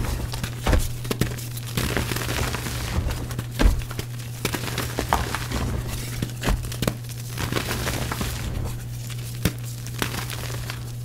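Powdery reformed gym chalk, pasted and dried back into blocks, being crushed and crumbled: irregular crunches and crackles, a few louder ones, over a steady low hum.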